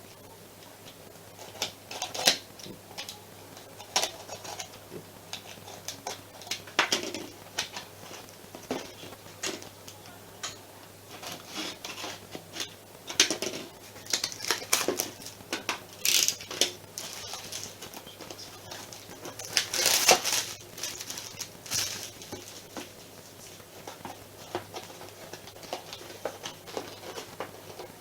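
Lego kit box being opened and handled: scattered taps, clicks and cardboard rustles, with a longer scraping rustle about 20 seconds in.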